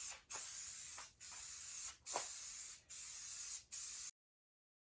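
Primer hissing from a spray nozzle onto a car hood in a run of short, even bursts, each under a second long with brief breaks between passes. It cuts off suddenly near the end.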